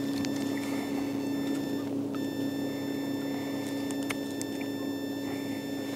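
A boat motor humming steadily at one unchanging pitch, with a few faint ticks over it.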